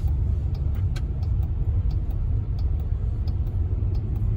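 Steady low rumble of road and engine noise inside the cabin of a Jeep Wagoneer with the twin-turbo 3.0-litre Hurricane inline six, cruising at low speed, with faint scattered ticks.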